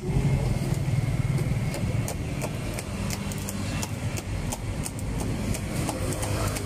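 Street traffic: a road vehicle's engine running close by, loudest in the first couple of seconds and then easing off, with scattered light ticks throughout.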